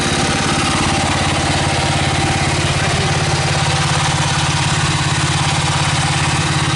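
Small mini excavator engine running steadily at a constant speed, with the machine held still.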